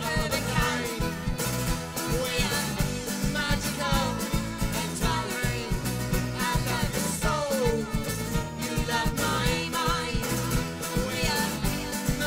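Live folk band playing an instrumental passage, with a steady driving beat and a melody line that slides between notes.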